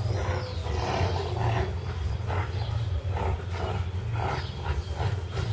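Doberman puppies growling while they play tug-of-war, a run of short rough growls about two a second, over a steady low hum.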